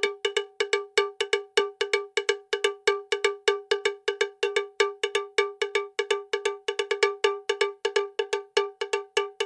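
A struck, bell-like percussion sound repeated quickly and steadily, about five or six strikes a second, every strike on the same pitch with a short ring.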